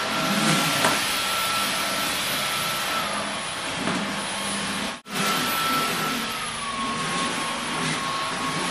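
Stick vacuum cleaner running: a steady rushing hiss with a motor whine that slides up and down in pitch, cut off for an instant about five seconds in.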